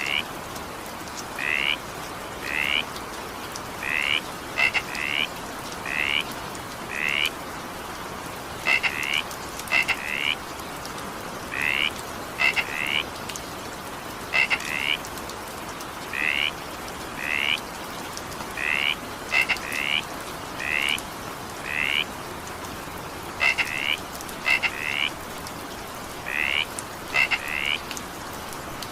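Frog calling over and over in short rising calls, singly or in quick pairs about once a second, over a steady hiss of rain.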